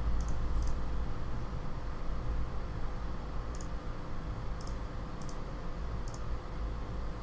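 About six short, sharp computer mouse clicks, irregularly spaced, over a steady low hum of room noise.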